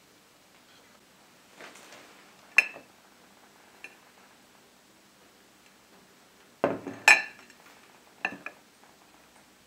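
Square white ceramic plates being set down and pushed together on a table: a few sharp clinks and knocks, one about two and a half seconds in and a louder cluster around seven seconds.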